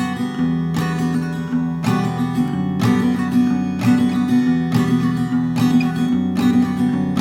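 Acoustic guitar fingerpicked in a steady repeating pattern: a thumb-plucked bass note about once a second, followed by down and up strokes of the index finger across the strings.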